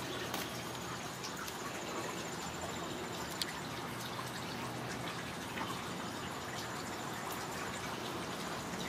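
Steady, soft close-up noise of a Ragdoll cat being stroked right against the microphone, with a few faint clicks.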